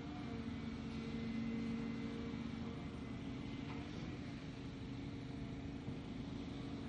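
Volvo EC290B LC excavator's diesel engine running under working load as it digs and loads a dump truck: a steady engine hum, with a faint click about halfway through.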